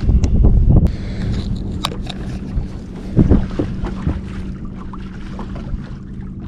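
Boat noise: a steady low hum, with wind rumbling on the microphone for the first second, then scattered knocks and one louder thump a little past three seconds in.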